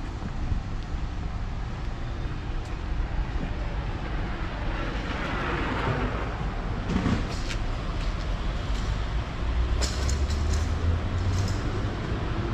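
Street traffic ambience: a steady low rumble of road traffic, with a passing vehicle swelling and fading about five to six seconds in.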